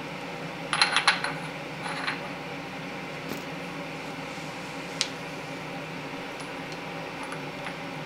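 Light metallic clinks and taps of a Chrysler 383 big-block's steel timing sprocket and roller chain being handled and fitted onto the crankshaft: a quick cluster about a second in, a few more near two seconds, and a single sharp tick about five seconds in, over a steady low hum.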